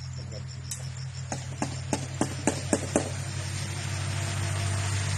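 A quick run of sharp clicks or knocks, about three a second, over a low steady hum that grows louder.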